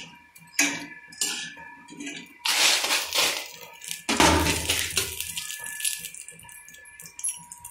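Steel kitchen utensils clinking and scraping: a metal spatula and steel plates and bowls being handled on a stovetop. A few short clinks come first, then two longer scraping, rattling bursts about two and a half and four seconds in.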